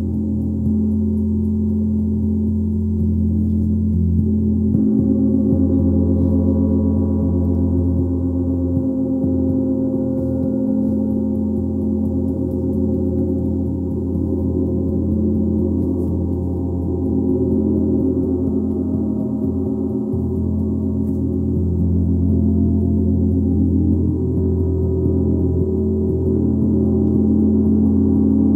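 Gong played continuously: a sustained, dense wash of deep steady tones and overtones, its upper overtones brightening about five seconds in.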